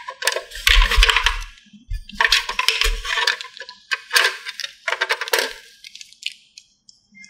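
Small plastic toy drink cans clattering and clinking against one another and the plastic tray as they are raked out of a toy vending machine and gathered by hand. The sound comes in four short rattling spells, with soft knocks as the cans drop.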